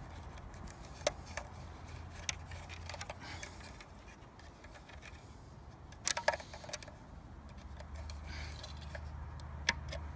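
Rebar tie wire being wound by hand around screws, giving scattered light metallic clicks and ticks as the wire taps the screws, with the loudest little cluster of clicks about six seconds in.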